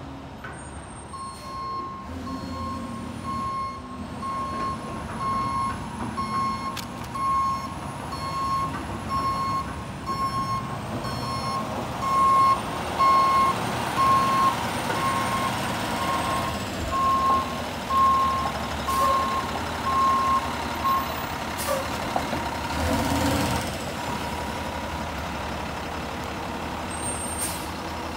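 Front-loader garbage truck backing up, its reverse alarm beeping evenly over the running diesel engine; the beeping stops about three-quarters of the way through. Near the end comes a short hiss of the air brakes.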